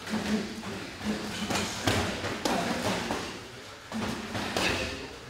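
Gloved punches landing on bodies and gloves during clinch sparring: a string of irregular dull thuds.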